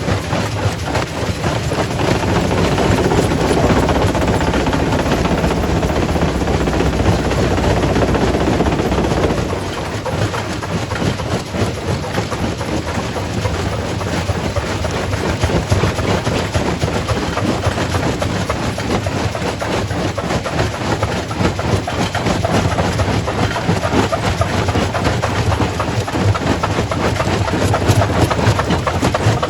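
Quarry primary rock crusher crushing stone: a continuous heavy grinding rumble thick with cracking and clattering rock. It is louder for the first nine seconds or so, then eases off a little.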